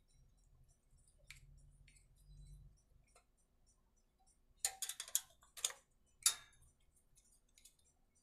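Wrench clicking on the carburettor mounting nuts of a small petrol generator as they are unscrewed: a few faint clicks, then a quick run of louder clicks a little past the middle and a single one shortly after.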